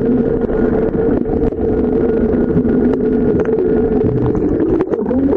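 Boat engine running at a steady pitch, a constant hum with scattered light clicks over it.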